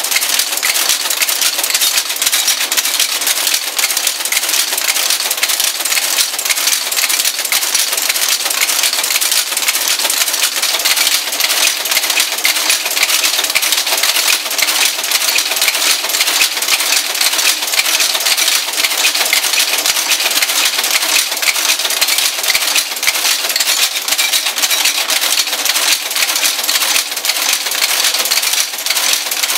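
Monotype composition caster, driven by computer-controlled air valves, running and casting type: a steady, dense metallic clatter of rapid clicks from its mechanism.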